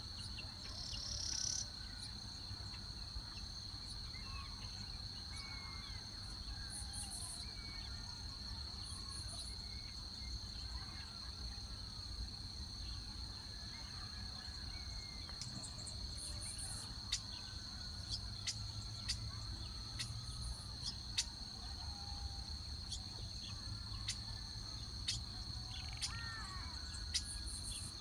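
A steady, high, unbroken insect trill runs throughout, with faint bird chirps scattered over it. In the second half come sharp clicks every second or so.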